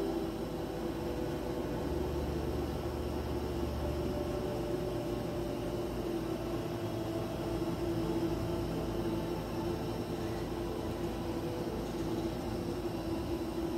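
A steady droning hum over an even hiss, unchanging throughout.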